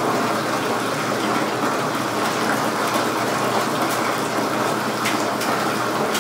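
Jacuzzi whirlpool tub running: its pump and jets churning the bathwater with a steady rush.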